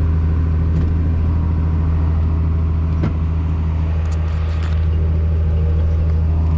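Tractor diesel engine running steadily under load, driving the grain cart's unloading auger, with a single short click about three seconds in.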